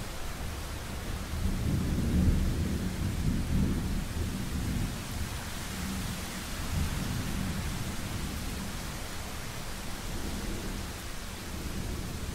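Thunderstorm: steady rain hiss with a low rolling rumble of thunder that swells about two seconds in and then slowly dies away.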